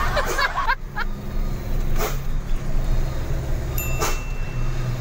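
Diesel truck engine running steadily, heard from inside the cab while driving, with a few short knocks and a brief thin high tone about four seconds in.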